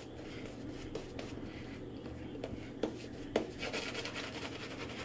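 Razor blade scraping through lathered beard stubble on the cheek in a run of short strokes with the grain, busiest near the end.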